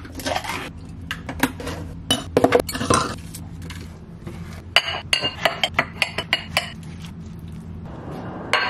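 Dishes, glassware and cutlery clinking and clattering in a kitchen as breakfast is put together: a run of sharp separate clinks and knocks, two busy clusters with a short lull between.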